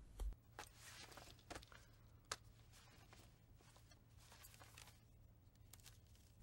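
Near silence: room tone with a low hum and a few faint, scattered clicks and rustles.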